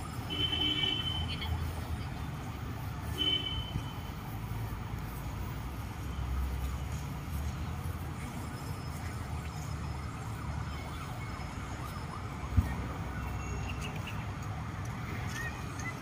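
Outdoor city park ambience: a steady low rumble of distant traffic, with two brief high whistle-like tones near the start and a single sharp knock about three-quarters of the way through.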